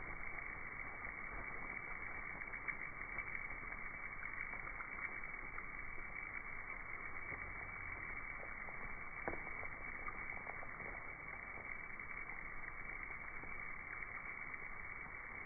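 Mass emergence of Mexican free-tailed bats, heard as a steady, dense rushing with many faint scattered ticks, slowed down with the slow-motion footage so it sounds low and muffled with no high end.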